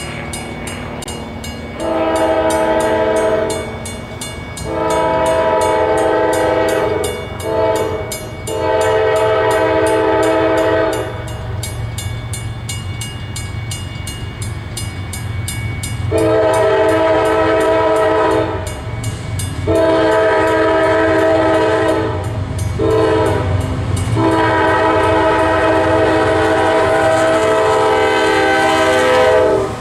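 Multi-chime air horn of a CSX freight train's lead locomotive, a GE AC44CW, sounding the grade-crossing signal of long, long, short, long blasts twice over. The final blast is held longest as the train reaches the crossing. A low diesel rumble from the locomotives runs underneath.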